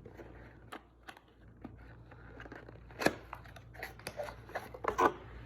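Scattered light clicks and knocks of objects being handled and set down on a kitchen counter, with a sharper knock about three seconds in and a short cluster near the end.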